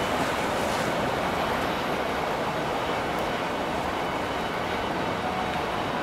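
Steady rushing noise of a boat under way on the water: engine and water wash blended into an even hiss-like rumble with no distinct beats.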